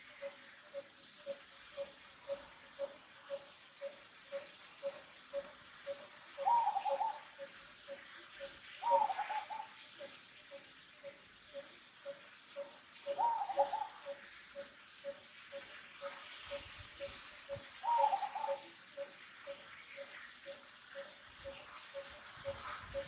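Bird calls: a short note repeated at an even pace, a little under two a second, with four louder, brief wavering calls a little higher in pitch at intervals of a few seconds.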